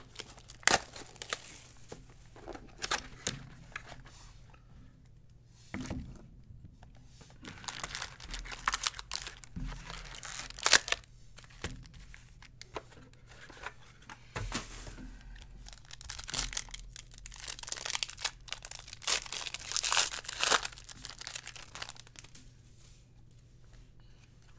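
A cardboard card box being opened and foil trading-card packs torn open and crinkled by hand: scattered clicks and rustles, with louder bursts of ripping and crackling foil about ten seconds in and again from about sixteen to twenty-one seconds.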